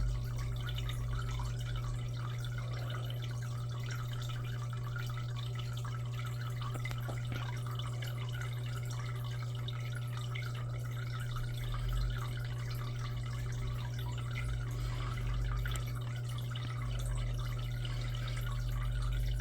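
Aquarium filter running: water trickling and dripping continuously over a steady low hum.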